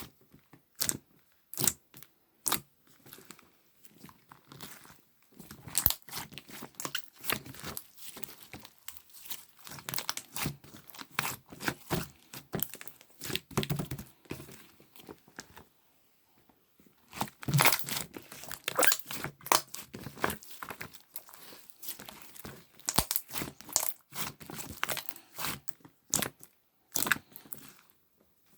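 Slime being squeezed and worked by hand, giving dense runs of crackling and crunching clicks with brief pauses between handfuls.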